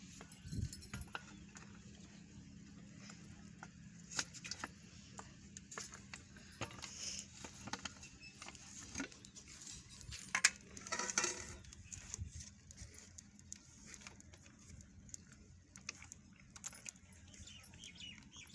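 Metal cooking pots and utensils clinking and being handled, in scattered clicks and clinks, with a louder clatter about ten to eleven seconds in.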